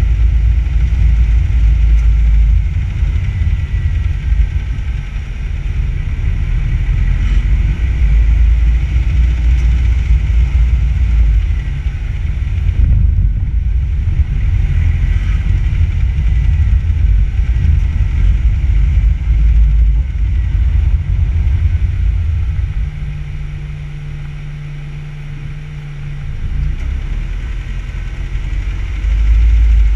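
Driving noise picked up by a camera on a car's front bumper: a heavy low rumble of wind buffeting and road noise. About 23 seconds in it eases as the car slows in traffic, leaving a steadier low hum.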